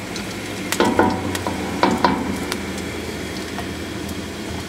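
Sliced onions sizzling steadily in hot oil in a stainless steel pot. A silicone spatula stirs them, scraping and knocking against the pot a few times in the first couple of seconds.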